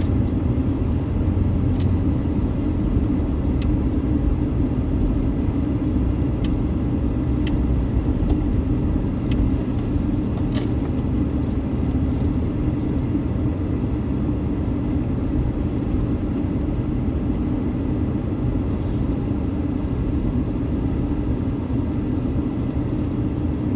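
Car driving: a steady low rumble of engine and road noise with no change in pace, with a few faint clicks scattered through the first half.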